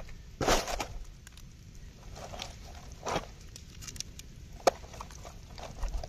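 Scattered short rustles and taps of a roasted chicken being handled and torn apart on a palm leaf, with one sharp click a little before the end.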